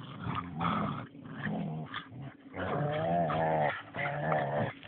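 A dog growling in about four drawn-out growls, the longest with a wavering pitch: warning growls at a pestering smaller dog.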